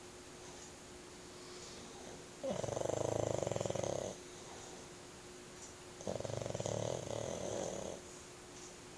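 Pug snoring very loud in a deep sleep: two long, fluttering snores about three and a half seconds apart, each lasting close to two seconds.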